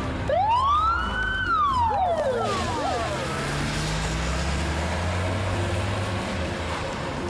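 A siren sounds one wail, rising for about a second and falling away over the next two. A vehicle engine then runs steadily underneath.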